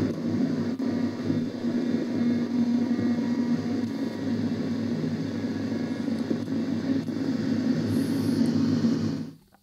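Zenith Trans-Oceanic Royal D7000Y transistor radio tuned across the AM broadcast band, its speaker giving steady static with a low buzzing hum: interference from a powerline internet adapter swamping the band. The noise cuts off abruptly near the end.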